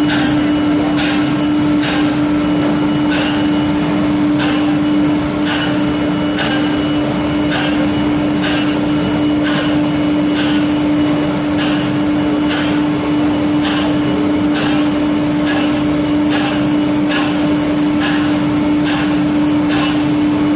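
Four-spindle CNC nesting router running with a loud, steady hum, and regular short ticks a little more than once a second.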